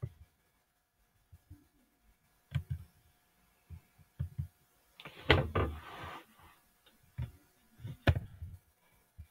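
Scattered soft clicks and knocks of a computer mouse on a desk as a web form is filled in. About five seconds in, a louder noisy rustle lasts about a second, and a sharper knock comes near the end.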